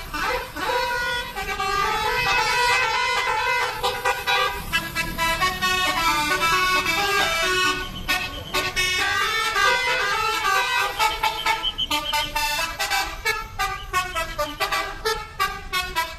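Bus 'telolet' horn, a set of multi-tone trumpet horns, playing a tune of stepping notes, with the notes getting shorter and choppier toward the end.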